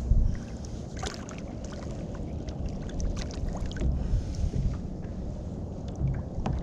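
Water lapping against a plastic sit-on-top kayak hull with a steady low rumble of wind on the microphone, broken by scattered small clicks and knocks. There is one louder knock right at the start.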